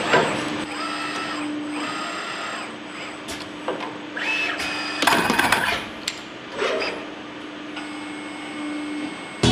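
Machinery running with a steady hum and whirring stretches that start and stop, a few sharp clicks near the middle and a louder, harsher burst about halfway through.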